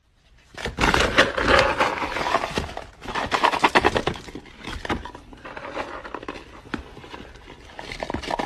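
Dry dog kibble rattling and clattering as a plastic scoop digs into a bag of it, a dense run of small clicks, busiest in the first few seconds, with the plastic bag crinkling.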